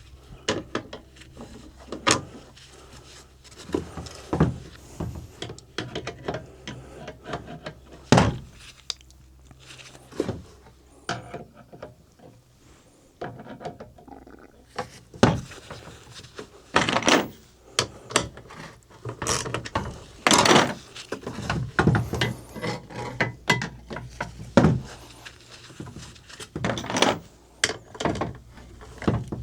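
Hand tools clinking and knocking on the metal of a corn planter's finger pickup seed meter as its nuts and bolts are worked loose: irregular sharp clicks and clanks, coming thicker in the second half.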